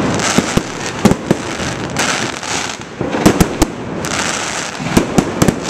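Aerial fireworks shells bursting overhead: a run of sharp bangs, some single and some in quick clusters, with a steady hiss between them.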